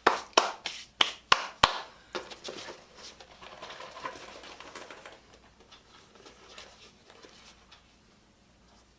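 A quick run of about seven sharp taps and knocks in the first two seconds as the vinyl meter bag is handled, perhaps to knock out the sand inside it. Then a rustling, scrubbing sound that dies away about five seconds in.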